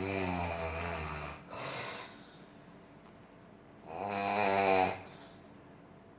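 A sleeping person snoring: two long, low snores about four seconds apart, the first trailing into a shorter, softer one.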